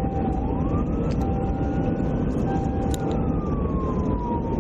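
Police car siren wailing, one slow rise over about the first three seconds and a slow fall near the end, over the steady road and engine rumble inside the patrol car at highway speed.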